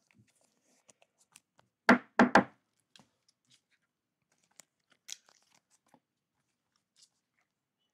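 Trading cards and a rigid plastic top loader being handled on a table: scattered light clicks and rustles, with three quick loud knocks about two seconds in.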